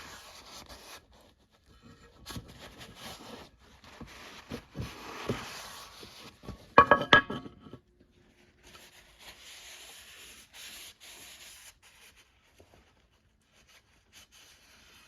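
A shop towel being rubbed around inside a snowmobile's metal chain case cover in intermittent wiping strokes, cleaning out leftover oil and metal bits. About seven seconds in there is a brief loud metallic clatter with a ringing tone.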